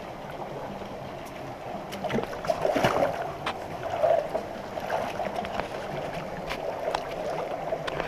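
Shallow rocky creek flowing and babbling steadily, with a spell of louder splashing and sloshing about two to four seconds in.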